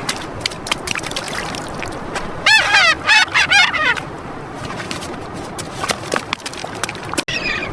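A bird calling: a quick run of about four loud, arching calls, with a fainter call near the end, over a steady background hiss with scattered clicks.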